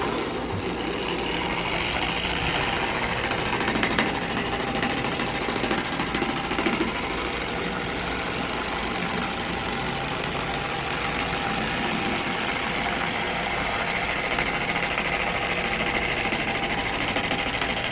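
Harbor Freight 6-inch dual-action polisher running steadily on its lowest speed setting, its foam pad working polish into a car's paint.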